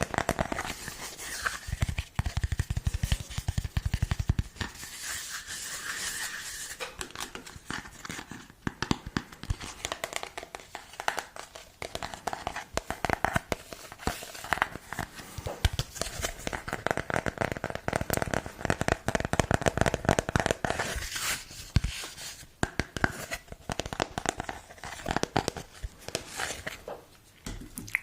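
Close-miked crinkling and tearing: a dense, continuous run of fine crackles from material handled by hand.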